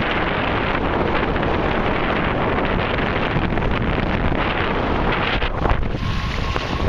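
Strong wind buffeting the microphone, a loud, steady rushing noise that eases somewhat about five seconds in.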